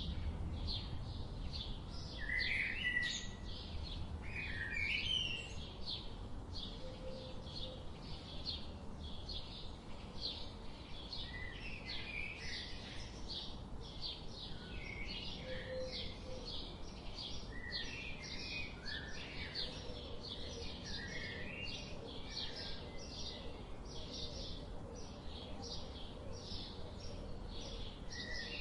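Several songbirds chirping and singing together: a dense run of quick, high, repeated chirps, with lower warbling phrases now and then, over a steady low background rumble.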